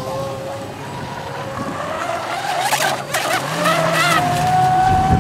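Pro Boat Miss Geico RC racing boat running flat out on a 6-cell LiPo, its electric motor giving a steady high whine. The pitch climbs partway through and holds higher toward the end, with a brief hiss about three seconds in.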